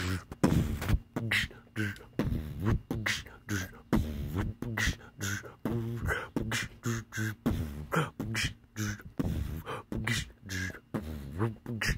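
A man beatboxing: short vocal percussion hits in a steady rhythm, with hummed low notes between them.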